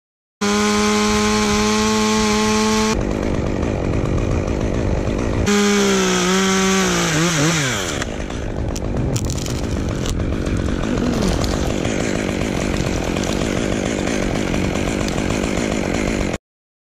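Two-stroke chainsaw running with a steady engine note that cuts off abruptly about three seconds in. It starts again and its pitch slides down as the engine slows, then gives way to a rough, steady noise with no clear note.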